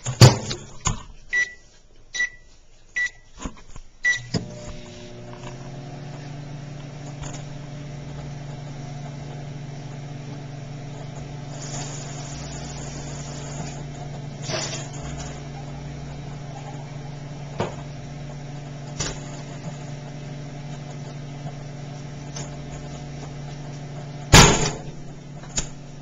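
A microwave oven door clicks shut and four keypad beeps follow, then the oven starts and runs with a steady hum. About 24 seconds in, a single loud bang: an egg heated inside the oven bursts, jolting the bowl and the oven.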